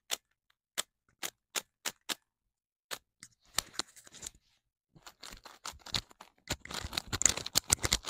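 Magnetic MGC Megaminx being turned close to a clip-on microphone: single sharp clicks of its faces snapping into place about every half second, then from about five seconds in a fast run of clicking turns.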